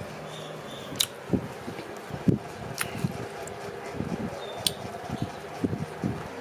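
A metal spoon clinking sharply three times while scooping quail eggs from a metal tray, with close chewing and wet mouth sounds of a full mouth in between.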